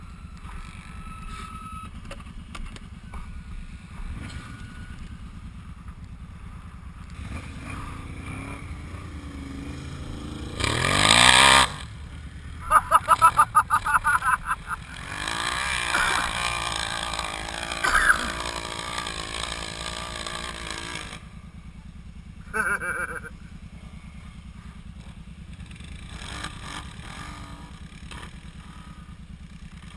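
ATV engines: a quad idles with a steady low hum while another is revved hard, with a loud rising rev about eleven seconds in and then a quick stuttering run of revs. Engine noise then carries on and drops away around twenty-one seconds, with one more short rev a couple of seconds later.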